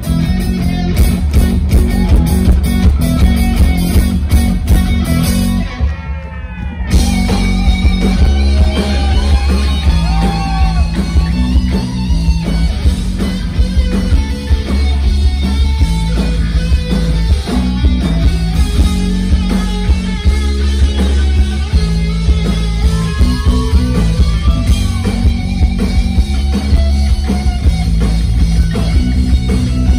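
Live rock band playing an instrumental passage with drums, bass guitar and a distorted electric guitar lead with bent, gliding notes. The band drops out briefly about six seconds in, then comes back in.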